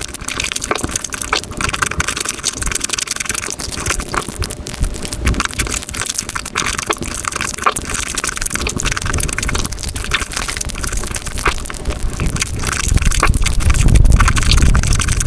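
Rapid crunching and chewing of food close to the microphone, a dense run of crackles and clicks, with a louder low rumble coming in near the end.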